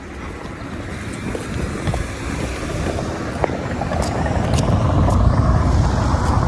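A car driving past on a nearby road, its engine and tyre noise growing steadily louder as it approaches, with wind buffeting the microphone.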